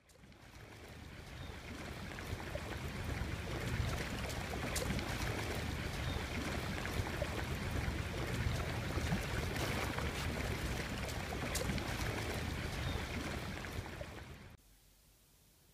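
Shallow stream water flowing and rippling steadily, with a few faint trickling ticks. It fades in over the first couple of seconds and cuts off sharply near the end.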